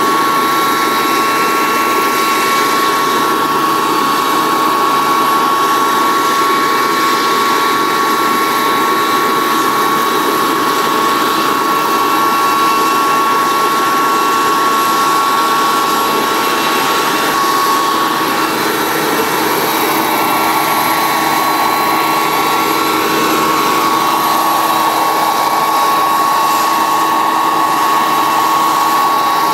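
Single JetCat model jet turbine powering a Vario CH-53 Super Stallion radio-controlled helicopter with a 2-metre rotor, running steadily while the model hovers: a constant high whine over an even rushing hiss.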